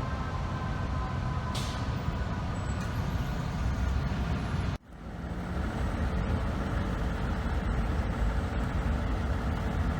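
Steady low rumble of heavy truck engines and street traffic, with a short hiss about one and a half seconds in. The sound drops out abruptly near the middle and the rumble comes back.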